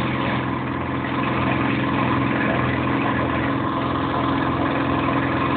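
Engine running steadily at an even pitch, with no change in speed.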